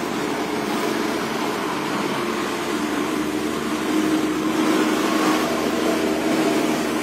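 Steady road traffic: vehicles going by with engine and tyre noise, swelling slightly in the middle.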